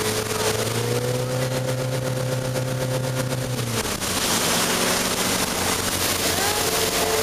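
Motorboat engine running at speed while towing an inflatable tube. Its pitch rises slightly about a second in and drops near four seconds in. After that the rush of water and wind gets louder.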